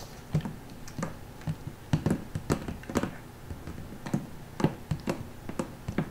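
Corgi puppy lapping water from a plastic bowl: a quick, uneven run of wet clicks and taps.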